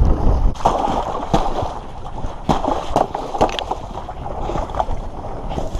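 Wind buffeting the microphone with water sloshing, and several sharp knocks or splashes spread through it.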